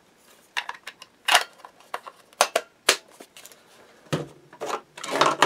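Scattered plastic clicks and knocks from handling a hobby-grade RC radio transmitter, with some softer rustling near the end.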